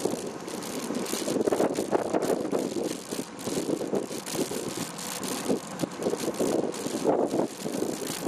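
Wind buffeting the microphone of a camera on a moving bicycle, with uneven road rattle and jolts from the camera mount. No engine or voice is heard.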